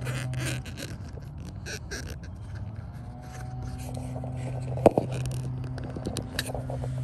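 Hands working plastic door trim and wiring, with rustling and scraping, and one sharp click about five seconds in as the new LED projector puddle light's plug is pushed onto the door's wiring connector. A low steady hum runs underneath and drops out for a few seconds near the start.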